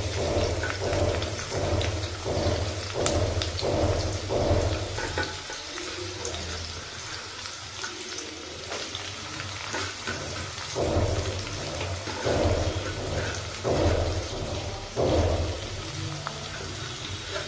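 Sliced onions and green chillies frying in hot oil in a steel kadhai: a steady, rain-like sizzle. Short regular pulses come roughly every half second in the first few seconds and again for a few seconds after the middle.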